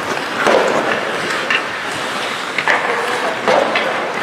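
Ice hockey rink sound during play: an even hiss of skates on the ice, with a few short shouts and sharp clicks of sticks.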